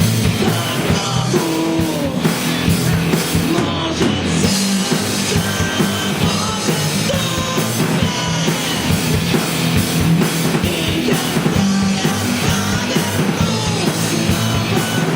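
Rock band playing a song live, with a drum kit beating steadily under guitars and a singing voice.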